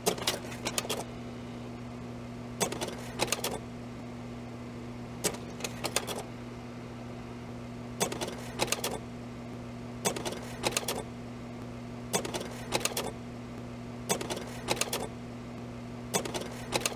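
Typewriter keys being struck in short bursts of several quick clacks, one burst about every two seconds, over a steady low hum.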